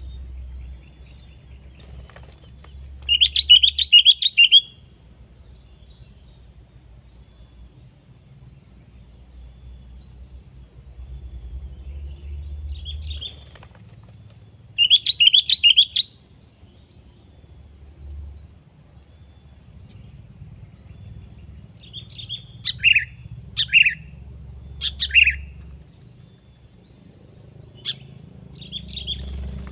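Sooty-headed bulbul (kutilang) calling: a quick burst of bubbly chirps about three seconds in and another about fifteen seconds in, then a string of separate sharp notes from about twenty-two seconds on.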